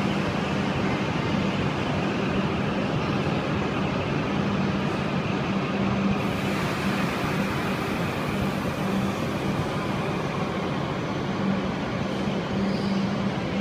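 Shinkansen train alongside a station platform: a steady rumble with a low, even hum and no break, echoing in the enclosed station.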